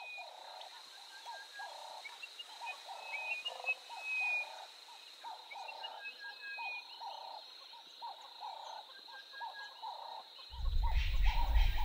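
Wildlife ambience: a low call repeated about twice a second, with scattered short bird chirps and a steady high-pitched insect-like whine. Near the end a low rumble comes in.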